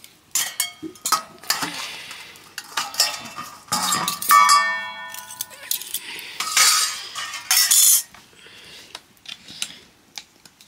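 Dishes and utensils clattering and clinking in quick, irregular knocks, with one piece ringing on for about a second midway.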